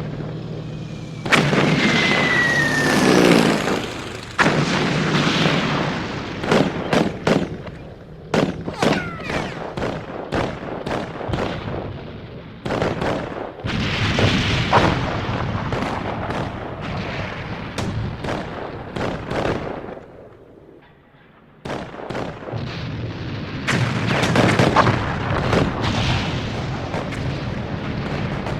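Battle sound effect: rapid bursts of gunfire mixed with artillery booms, with a falling whistle about two seconds in. The firing thins out and drops away briefly about three-quarters of the way through, then resumes.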